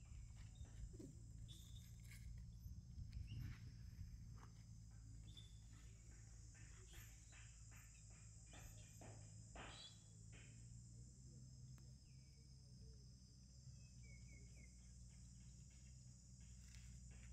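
Faint ambient outdoor sound: a steady, even high-pitched insect drone over a low background rumble, with a few soft ticks and rustles.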